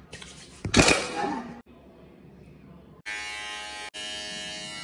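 Cordless electric hair trimmer switched on about three seconds in, its motor buzzing steadily while it is held against the face. A short loud noise comes about a second in, before the trimmer starts.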